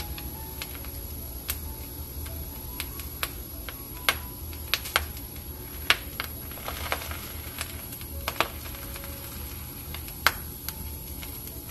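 Bacon and an egg frying in a pan: irregular sharp pops and crackles of spitting fat, a few stronger ones scattered through, over a low steady background.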